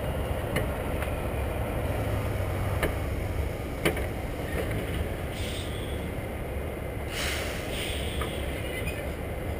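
Heavy truck's diesel engine running with a steady low rumble, with scattered light ticks and a couple of short hisses about five and seven seconds in.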